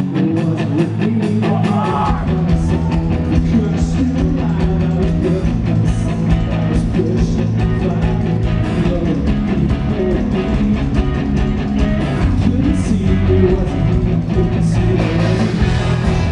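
Live rock band playing loud, with electric guitars and drums. The bass and low end come in heavily about two seconds in.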